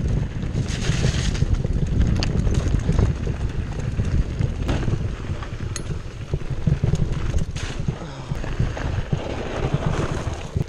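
Wind buffeting a chest-mounted action camera's microphone as a mountain bike (a 2015 Cannondale Jekyll 4 full-suspension bike) rolls down a dirt singletrack, with tyre rumble over the dirt and scattered sharp clicks and rattles from the bike. A brief hiss about a second in and again around seven and a half seconds.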